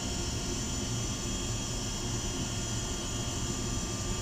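Steady low droning hum with hiss, unchanging throughout, with no distinct knocks or clicks.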